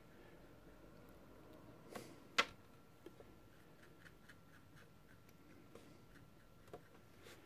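Light taps and clicks of painting gear being handled: one sharp click about two and a half seconds in, a softer one just before it, then a scatter of faint ticks over quiet room tone.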